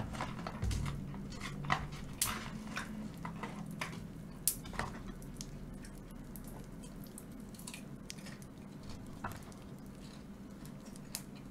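Person eating boneless fried chicken: chewing and scattered small clicks and taps, denser in the first few seconds, over a faint steady low hum.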